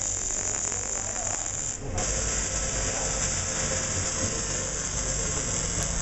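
Welding arc hissing and crackling steadily, breaking off for a moment about two seconds in and then striking again.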